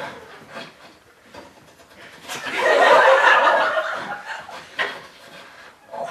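Audience laughing: a burst of laughter swells about two and a half seconds in and dies away over a couple of seconds.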